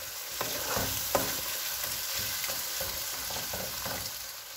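Ground beef, onion, bell pepper and tomato paste sizzling in a coated frying pan as a wooden spoon stirs through it, with a few light scrapes and knocks of the spoon on the pan. The tomato paste is being fried to cook off its raw taste.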